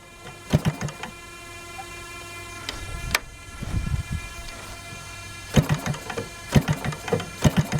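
GP 88 model aircraft engine with a Pitts-style muffler running steadily, swinging a 27x10 propeller. Several sharp, loud knocks are heard over it, most of them in the last two seconds.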